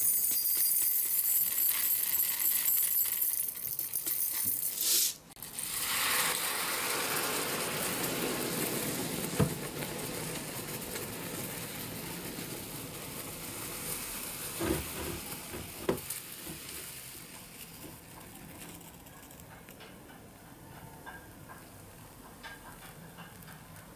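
White granules poured from a plastic bottle, rattling onto diecast car bodies in a plastic bowl. After a brief break, water is poured in and the paint-stripping bath fizzes and foams, a hiss that slowly dies down, with a few clicks.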